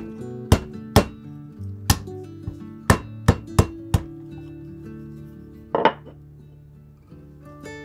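Whole cucumber being smashed on a wooden cutting board with a blunt rod: about seven sharp whacks in the first four seconds, then one more near six seconds. Soft background music plays underneath.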